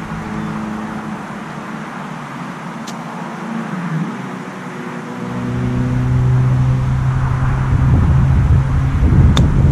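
Steady hum of a motor engine running, growing louder from about halfway through, with a low rumble building near the end. About nine seconds in, a single crisp click as the golf club strikes the ball on a short chip shot.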